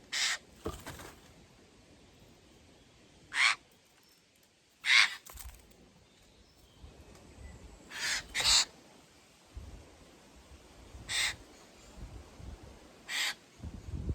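Eurasian jays giving harsh, raspy screech calls, about eight short calls with pauses between, some coming in quick pairs.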